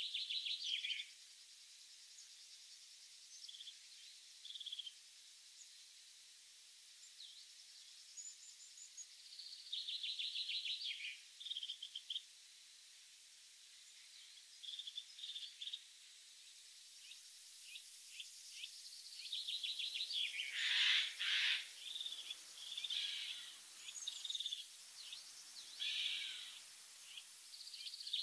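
Small birds singing and calling in open countryside: short trills and chirps come and go, growing busier and louder in the last third. A steady high hiss joins about two-thirds of the way in.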